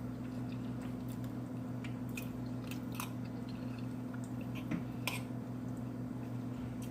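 A person chewing a mouthful of tender turkey wing with couscous and sauce, with faint scattered mouth clicks and smacks. A steady low hum runs underneath.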